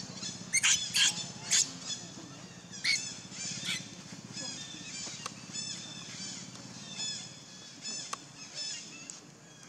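Baby macaque giving a run of short, high-pitched squealing calls, a few every second. The loudest come in the first two seconds; later calls are fainter.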